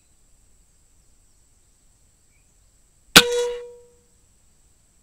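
A single shot from a Seneca Eagle Claw .25 calibre PCP air rifle about three seconds in: a sharp crack with a short ringing tone that dies away within about half a second.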